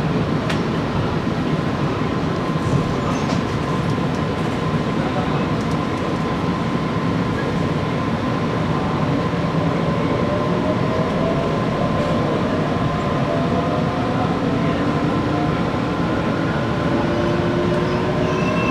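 Hitachi IGBT VVVF inverter and traction motors of a JR Kyushu 817 series 3000 electric train, heard from inside the car. A steady high tone sounds over the running noise, and from about halfway a whine in several tones rises slowly in pitch as the train accelerates away.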